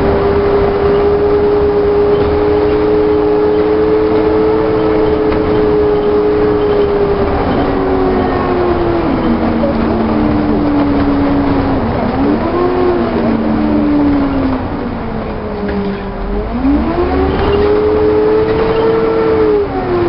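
Volvo double-decker bus with Alexander body running on the road, its engine and driveline whine holding a steady pitch, then falling, briefly rising and falling again. Near the end the pitch dips low and the sound softens before climbing again as the bus picks up speed.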